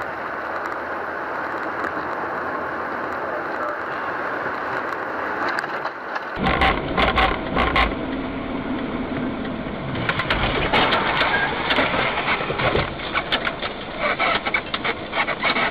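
A steady rush of road noise inside a moving car. About six seconds in it gives way to a run of bangs, knocks and scraping as a car runs off a snowy road into the roadside snow and trees.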